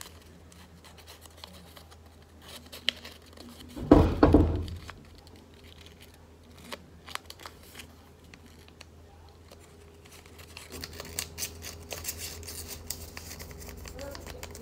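A sheet of origami paper rustling and crinkling as it is creased and its flaps are tucked in by hand, with light crisp crackles that grow busier near the end. A single loud low thump comes about four seconds in.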